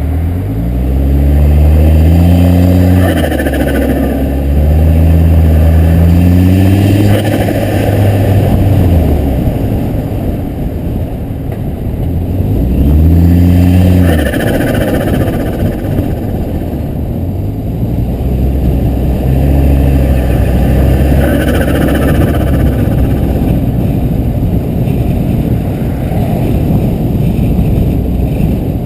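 Volvo S60R's turbocharged inline-five accelerating hard through the gears, its pitch climbing several times and breaking off at each shift. On lift-off the turbo flutters: compressor surge, because the disconnected diverter valve line leaves the boost no way out.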